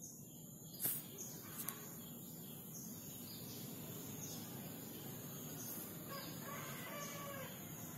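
Outdoor background with birds chirping now and then, a cluster of falling chirps near the end, over a steady low hum of ambient noise. A sharp click comes just under a second in, with a softer one soon after.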